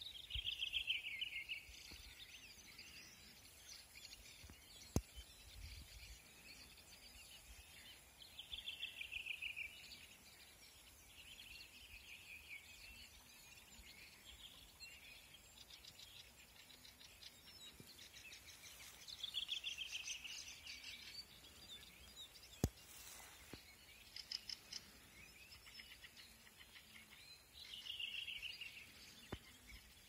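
A songbird singing a short, falling song phrase about a second and a half long, repeated five times several seconds apart, with fainter chirps between the phrases. Two sharp clicks stand out.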